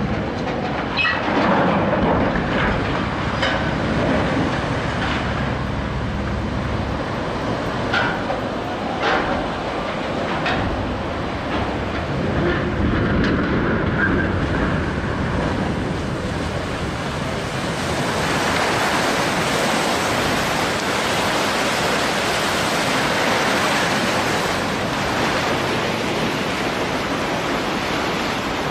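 Ship launch: a continuous rumbling rush with scattered clanks and knocks, then from about eighteen seconds in a broader, even rushing like surging water.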